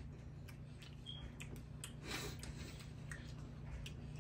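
Scattered light clicks and taps of spoons on plates as people eat ice cream, with a brief soft hiss about halfway through, over a low steady hum.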